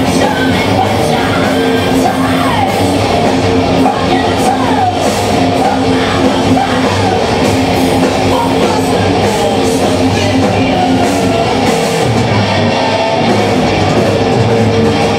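Live heavy metal band playing loud through a PA: distorted electric guitars, bass and drums, with a voice singing over them.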